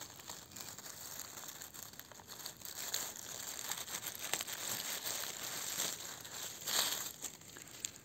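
Dry fallen birch leaves and forest litter rustling and crackling as a hand digs around a porcini mushroom and works it out of the ground, with a louder rustle about two-thirds through.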